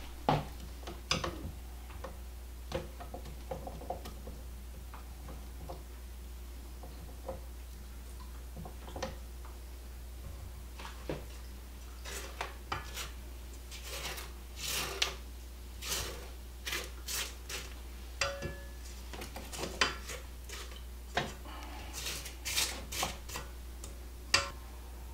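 Silicone spatula scraping a thick cream cheese mixture off a stand mixer's flat beater and the sides of a stainless steel bowl: irregular scrapes and light knocks, sparse at first and coming more often from about halfway.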